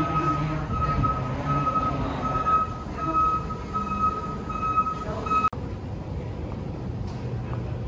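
Airport terminal ambience: a steady low rumble with a high electronic beep repeating about twice a second. The beep stops abruptly about five and a half seconds in, leaving the rumble.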